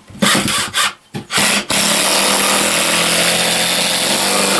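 Cordless drill/driver driving screws through plywood platform boards into the floor: a few short bursts of the motor in the first second and a half, then one steady run of about three seconds that stops sharply.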